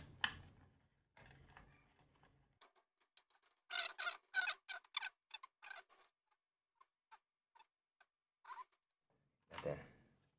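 Plastic radio casing being pried apart and handled: faint clicks, scrapes and rattles of plastic parts, with a quick run of sharp clicks about four seconds in and a soft knock near the end.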